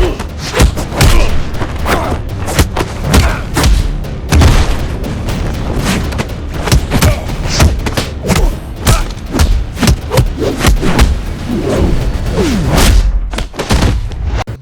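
Dense run of heavy, booming punch and kick impact sound effects, two or three hits a second, cutting off suddenly near the end.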